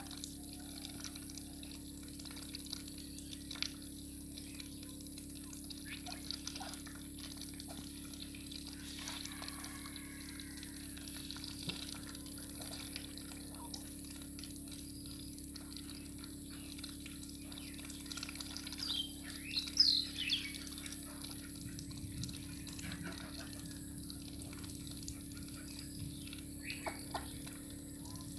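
Several domestic ducks dabbling their bills in a dish of wet feed: wet slurping, splashing and bill clicks. A brief louder burst comes about two-thirds of the way through.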